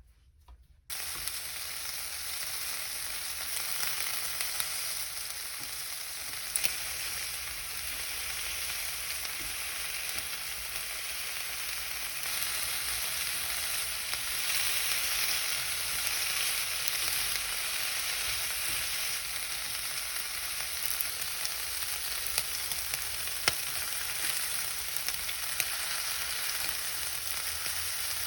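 Food frying in a pan, a steady sizzle that starts suddenly about a second in, with a few light clicks from a utensil.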